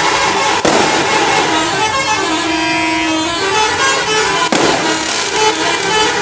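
Indonesian bus 'telolet' horn playing a long, continuous run of melodic air-horn tones, several notes sounding together and changing pitch. Two sharp clicks cut through it, one under a second in and another past the middle.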